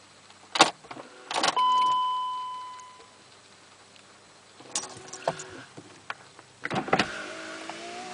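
Clicks and knocks from the BMW 2.5 TDS, and one chime tone that rings out and fades over about a second and a half. Near the end a steady mechanical whine starts.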